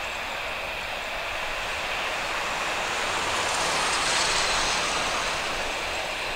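Boeing 737-800 jet engines (CFM56-7B) running at taxi power: a steady rushing jet noise with a high whine, swelling a little about four seconds in as the aircraft turns toward the listener.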